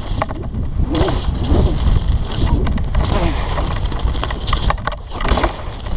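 Wind rushing over the microphone with the steady low rumble of a downhill mountain bike's tyres rolling fast over a gravel track, and scattered rattles and knocks from the bike.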